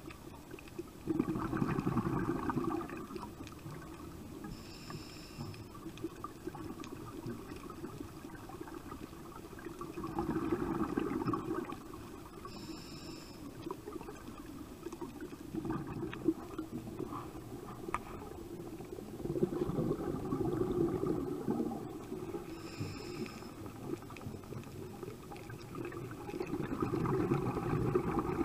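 A scuba diver breathing underwater through a regulator: four gurgling bursts of exhaled bubbles, each two to three seconds long and about eight or nine seconds apart, with a short hiss between bursts.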